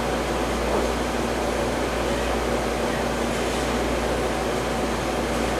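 Steady whir of a running fan with a low hum underneath, unchanging throughout.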